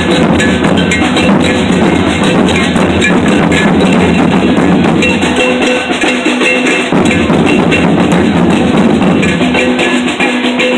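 Loud street-parade music: drums and hand percussion keeping a beat, with some steady held notes, over a crowd of marchers.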